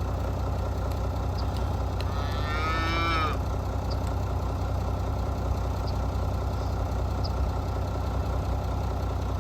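A single moo lasting about a second, about two seconds in, over the steady sound of an idling engine.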